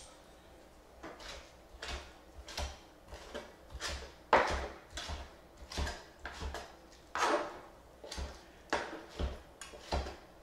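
Large kitchen knife chopping cooked beef on a plastic cutting board: a string of knocks about one to two a second, with one harder chop about four seconds in.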